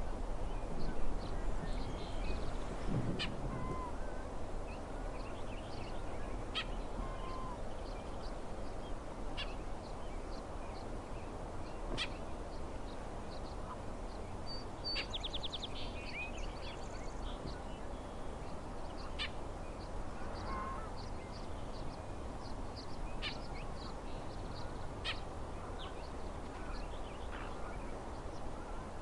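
Bullock's oriole calling in agitation: scattered short, sharp call notes every second or two, with a rattling chatter about fifteen seconds in, over steady background noise.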